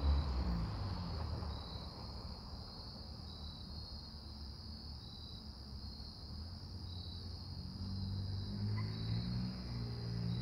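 2008 Jeep Patriot four-cylinder with its muffler deleted, the exhaust note fading over the first couple of seconds as the car drives away. In the lull, crickets chirp in an even repeating pattern, and the exhaust grows louder again over the last couple of seconds as the Jeep comes back.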